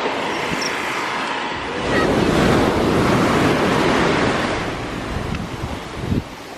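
Ocean surf breaking on a beach: a wave surges up about two seconds in and washes back out over the next few seconds, with wind on the microphone.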